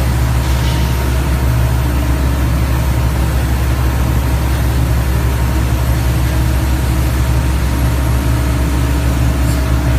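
Piling drill rig running steadily under load, a constant low drone of engine and hydraulics as the rotary head drills the string down into the ground.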